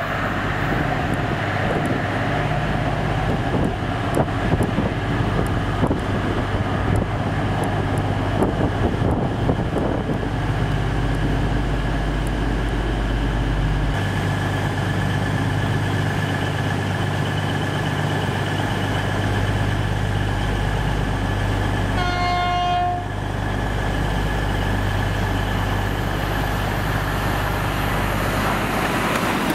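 Diesel trains running through a station: a steady low diesel hum with sharp wheel clicks over the rail joints as an HST's Class 43 power car approaches, then the engine hum of an approaching Class 222 Meridian. About two-thirds of the way through, a train horn sounds once, a single tone lasting about a second.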